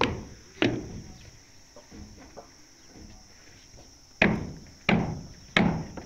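Heavy strikes of a tool on something solid, each dying away quickly, about one every two-thirds of a second: two at the start, then after a pause of about three seconds three more at the same pace.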